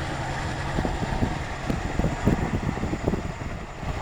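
Steady low rumble of a distant aircraft, with gusts of wind buffeting the microphone through the middle.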